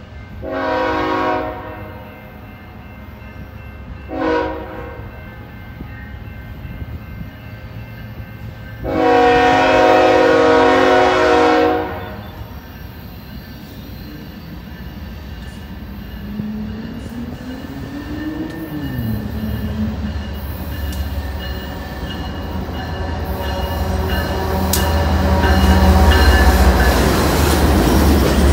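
Approaching BNSF freight train's diesel locomotive horn: a blast of about a second, a short one, then a long one of about three seconds. After that the locomotives' engine rumble and wheel noise build steadily, loudest near the end as the lead units pass close by.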